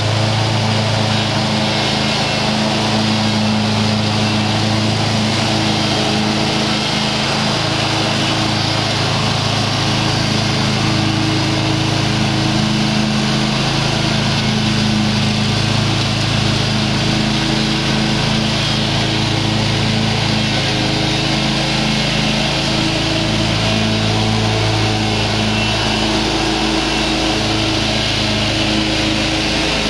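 Convertible commercial mower's gas engine running steadily with the cutting deck engaged, mowing tall grass. A steady engine hum over blade and grass noise, with small wavers in the engine note now and then.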